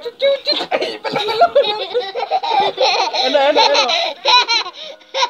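Children laughing hard together, a toddler's high laughter among them, in quick repeated peals that grow strongest toward the end.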